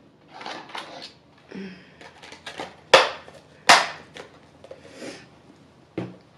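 Clear plastic deli tub being handled and its lid pressed shut: crinkling plastic, then two loud snapping clicks about three seconds in, less than a second apart, as the lid seats. A single knock near the end.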